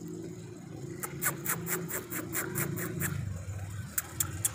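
Quick scraping steps on gravelly asphalt, about five a second for two seconds, then a few single ticks near the end, over a steady low hum.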